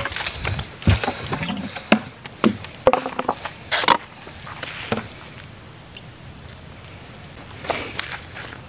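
Scattered knocks, clicks and rustles of a PVC eel trap being carried and handled, over a steady high insect drone.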